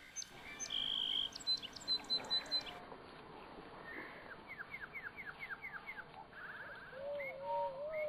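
Young emus peeping and whistling: a held high whistle and a quick run of short peeps, then about seven falling whistles, a brief trill and a lower wavering call near the end.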